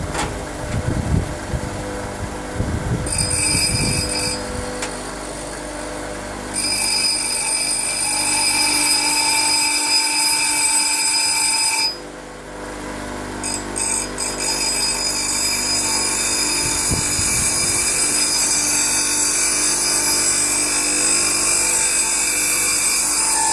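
A power grinding tool whining at a steady speed as it grinds down the end of a screw. It starts and stops three times: briefly, then for about five seconds, then for about ten.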